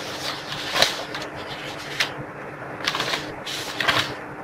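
Paper being handled on a desk: irregular rustling and scraping with several short sharp strokes, over a faint steady hum.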